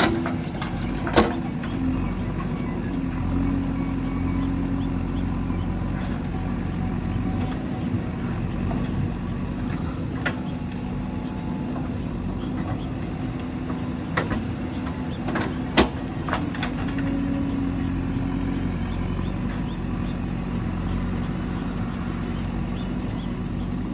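Diesel engine of a JCB 3DX backhoe loader running steadily while working, with a handful of sharp knocks now and then.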